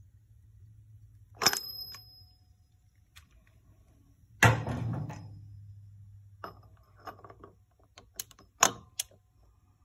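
Metal clinks and knocks from handling tools and the dial-indicator setup: a sharp, ringing metallic click about a second and a half in, a heavier clank about halfway through, then a few lighter clicks near the end, over a faint steady hum.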